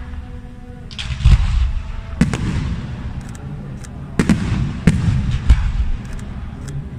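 Aerial firework shells bursting overhead: about six sharp bangs in irregular succession, each followed by a short rumbling tail, with thin crackling pops between them.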